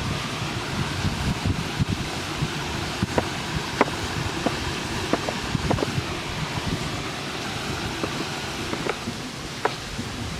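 Large chef's knife cutting through vegetables and mushrooms on a wooden board: scattered sharp, irregular knocks of the blade striking the wood, over a steady background hiss.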